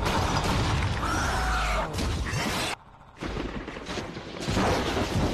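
Dense, noisy crashing sound effects with a short glide in pitch about a second in. They cut out briefly about three seconds in, then start again.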